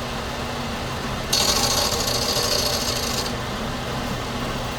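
Power tool running steadily while rounding the edge of a replacement window pane, with a rasping grind for about two seconds starting a little over a second in as the edge is pressed against it.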